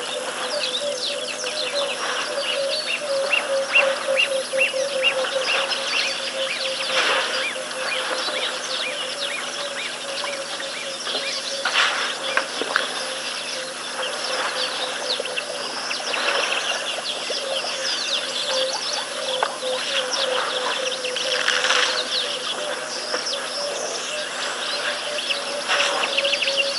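Bush ambience of many small birds chirping and whistling over a steady insect trill. Partway in, one bird repeats a short high note about three times a second for a few seconds.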